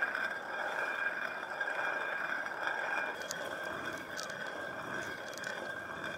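Hand-turned stone quern grinding dry lentils and grain: a continuous gritty grating of the upper stone spun over the lower one.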